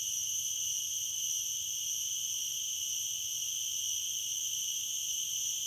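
Garengpung cicadas singing in a steady, unbroken high-pitched drone.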